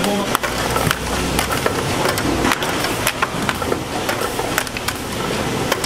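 Oysters in the shell clattering and knocking against each other and a plastic crate, many sharp irregular clacks, over the low steady hum of the conveyor machinery.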